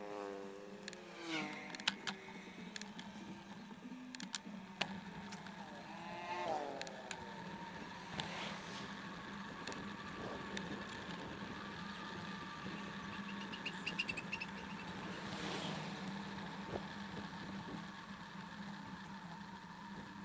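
Motor vehicles passing on a road, among them a motorcycle, their engine pitch falling as each goes by: once in the first two seconds and again around six seconds in. Underneath is a steady hum with road and wind noise and a few light clicks.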